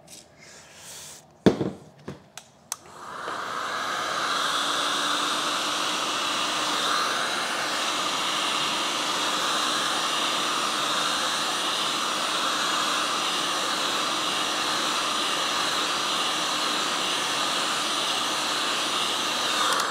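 A few short knocks, then a heat gun starts about three seconds in and blows steadily, with a faint motor hum under the hiss. It is heating the wheel hub around a rusted, tight wheel bearing to loosen it for the puller, and it stops just before the end.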